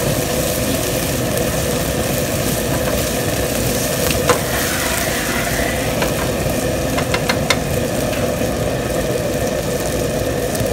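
Chicken and chopped onion stir-frying in a nonstick frying pan, with a spatula scraping and clicking against the pan: one sharp click about four seconds in and a quick cluster of clicks around seven seconds. All of it sits over a loud, steady machine drone.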